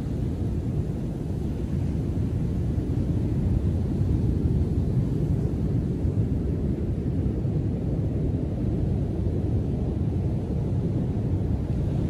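Heavy ocean surf, still rough after a winter storm: breaking waves and wash make a continuous deep rumble that swells a little a few seconds in.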